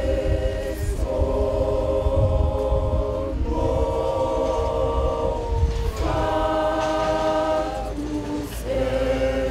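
Women's choir singing, holding sustained chords that change every second or two, with a steady low rumble underneath.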